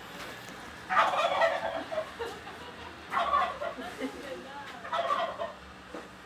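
Domestic turkey gobbling three times, about two seconds apart, each gobble lasting under a second.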